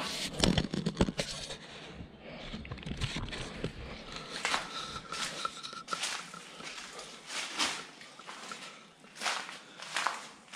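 Slow, irregular footsteps on a littered concrete floor, with a cluster of knocks in the first second.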